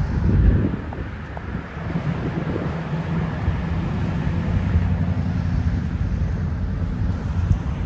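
Steady low rumble of a running vehicle engine, with wind on the microphone.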